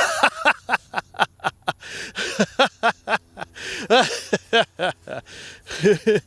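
A person laughing hard in a rapid string of short bursts.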